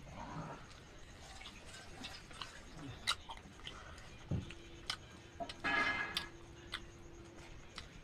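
Eating sounds: scattered small clicks and taps of food being eaten by hand, with a short, louder pitched sound about six seconds in.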